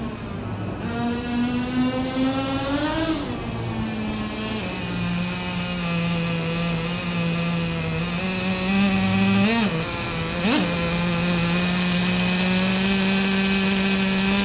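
Traxxas T-Maxx Classic's O.S. .15 CV two-stroke nitro glow engine running, its pitch rising then dropping a few seconds in, then holding a steady high drone. Two quick blips of the throttle come about a second apart near the ten-second mark.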